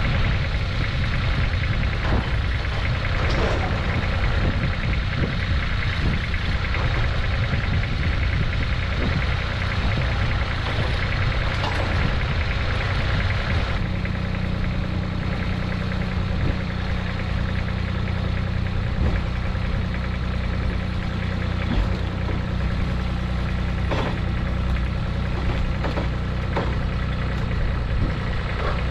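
Small garden tractor engine running while it powers a hydraulic three-point lift that is raising a load, with a few light clunks. About halfway through, the engine note changes and settles into a steadier hum.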